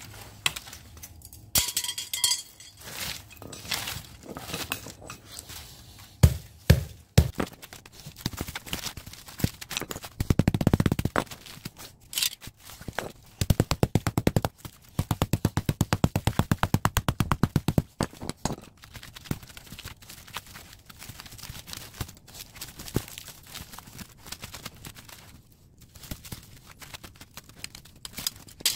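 Hammer and flat chisel knocking and prying the crushed aluminium fins off the copper tubes of a scrap radiator: scattered knocks and metal scrapes, then quick runs of rapid taps about a third of the way in and again around the middle.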